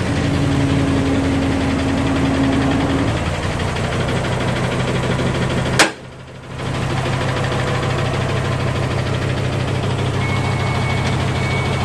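Isuzu Giga dump truck's diesel engine running steadily, with a steady hum over it that stops about three seconds in. Near the middle a sharp click cuts the sound off for under a second before the engine sound returns.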